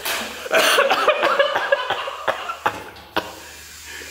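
A person laughing and coughing, then a few short, sharp clicks over a faint, steady low hum.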